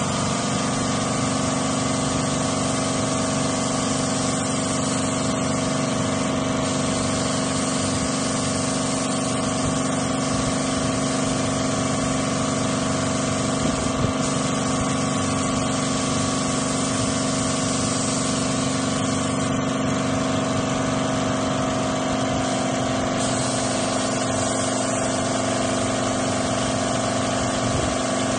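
Gentilin air compressor running steadily, with the air hiss of an Iwata W400 spray gun spraying paint over it; the hiss changes in strength now and then.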